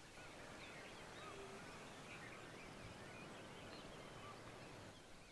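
Quiet outdoor ambience with faint, scattered chirps of distant birds.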